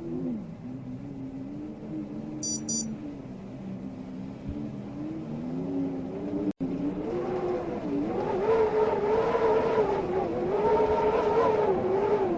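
Wind howling, a low moaning whistle whose pitch wavers slowly up and down. About halfway through it swells louder and higher as a gust builds.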